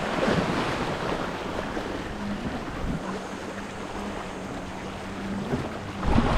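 Sea waves washing against the rocks, with wind buffeting the microphone. A faint steady low hum comes in about two seconds in and fades near the end.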